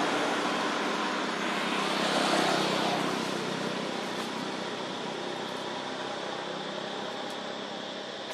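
Steady rushing background noise with a faint hum. It swells slightly about two seconds in, then slowly fades.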